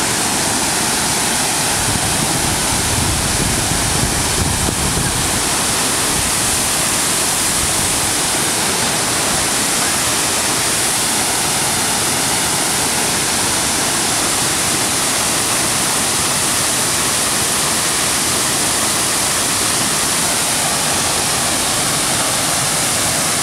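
Waterfall pouring over a broad rock ledge in several channels: a loud, steady rush of falling water.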